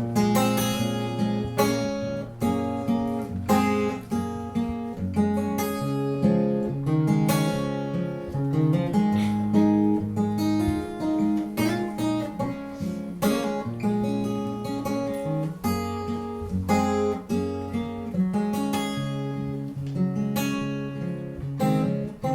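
Acoustic guitar playing an instrumental break in a folk song, strummed chords with picked notes and a moving bass line, no singing.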